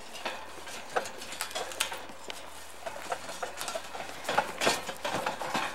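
Wooden handcart with large iron-rimmed spoked wheels being pushed over rough forest ground: an irregular clatter and knocking of wood and iron, with a few louder knocks about four to five seconds in.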